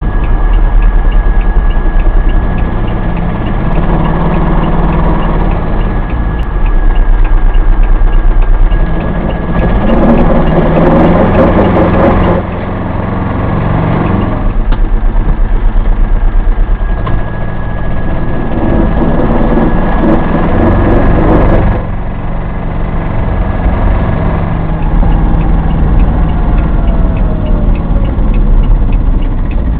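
An Aixam Mega Multitruck microcar van driving, heard from inside the cab: its small Kubota diesel engine drones steadily, and a rough scuffing, chafing noise comes and goes, loudest in two stretches about ten and twenty seconds in. The scuffing was first blamed on rusty brakes, but the brakes turned out not to be the cause.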